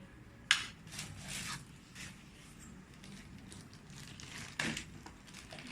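Hands handling plastic parts and packaging: a sharp click about half a second in, then rustling, and another knock near the end.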